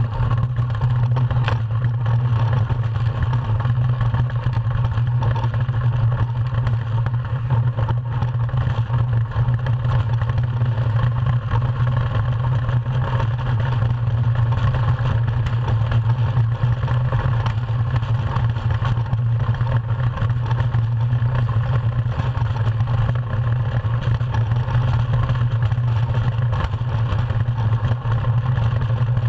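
DN ice yacht's steel runners sliding fast over smooth ice, a steady low rumble carried through the hull, with wind noise over it.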